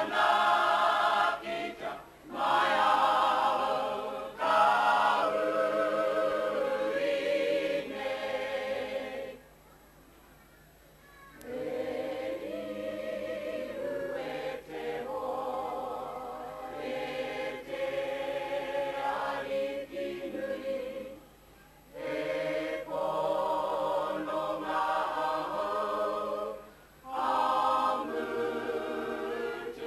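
Māori kapa haka group of women and men singing together as a choir, in long phrases broken by short pauses. The singing is louder in the first phrases and softer after a pause about ten seconds in.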